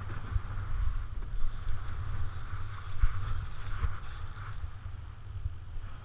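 Wind buffeting the microphone in gusts, over water rushing and splashing along the hull of a sailboat under way.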